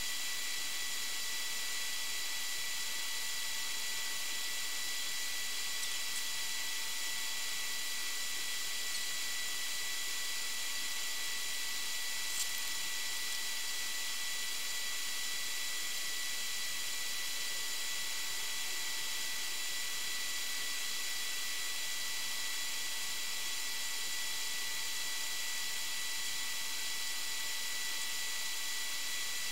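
Steady electronic hiss with several faint, fixed high-pitched whines and no low rumble: the recording device's own noise, with no clear sound of waves or wind. One faint click about twelve seconds in.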